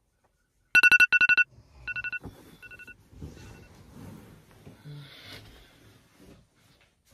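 A wake-up alarm going off with rapid, high-pitched beeps: a loud burst of about a second, then shorter, fainter bursts that die out within a few seconds. Soft rustling and shuffling follow.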